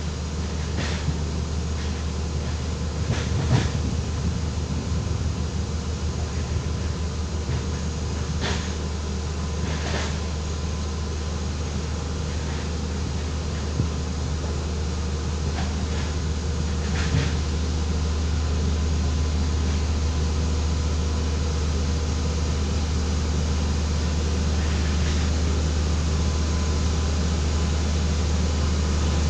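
Single-drum vibratory road roller compacting a wet dirt road, its engine and drum making a steady low drone that slowly grows louder as it comes closer. A few short knocks stand out over the first half.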